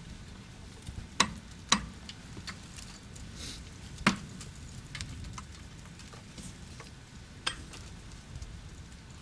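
Rime ice being struck and broken off a frozen steel lattice tower: four sharp cracks, about a second, a second and a half, four seconds and seven and a half seconds in, with lighter knocks and crackling of ice fragments between them, over a steady low rumble.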